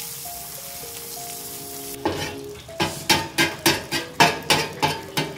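Food sizzling on a steel flat-top griddle. From about two seconds in, a metal spatula strikes and scrapes the griddle in quick succession, about three times a second, chopping and scrambling egg.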